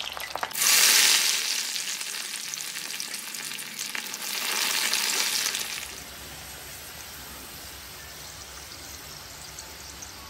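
Potato cubes deep-frying in hot oil in a steel kadai, sizzling loudly just after going in. The sizzle eases to a softer steady hiss after about six seconds.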